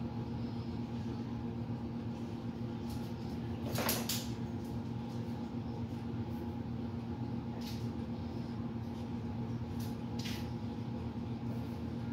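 A steady low hum throughout, with faint short scratches of a felt-tip marker colouring in on paper. A louder rustle comes about four seconds in.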